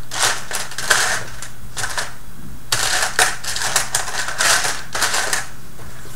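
Small plastic Robotis OLLO kit pieces clattering and clicking against each other as a hand rummages through the parts box, in quick irregular rattles with a short lull about two seconds in.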